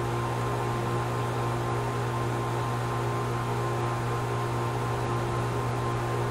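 A steady machine hum over a constant hiss, with no change in pitch or level: a motor running continuously.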